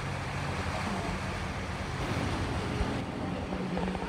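Turbulent water of the Severn Bore tidal surge pushing up the river, a steady noisy wash with wind on the microphone and a steady low engine hum underneath.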